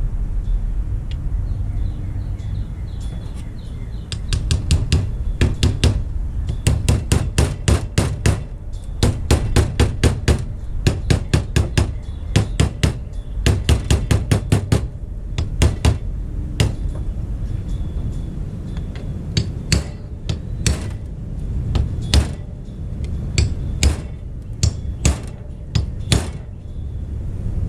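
Hammer blows driving a new grease seal into an axle hub: quick runs of light taps, about four a second, then slower single strikes as the seal goes home.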